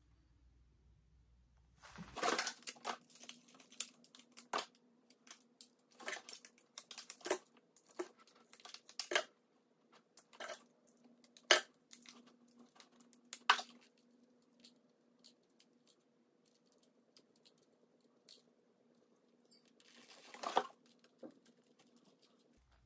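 Handling noise from a compact digital camera being worked in the hands: scattered sharp clicks and short rustles at irregular intervals, over a faint steady hum.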